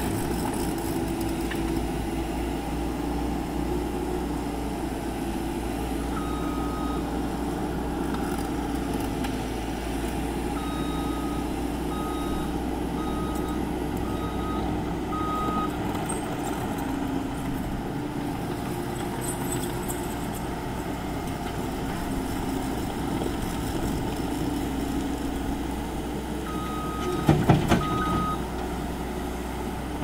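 Case TV380 compact track loader's diesel engine running steadily as it pushes dirt, with its reversing alarm beeping in short stretches, about one beep a second, as it backs up. A loud clatter of the bucket and dirt comes near the end.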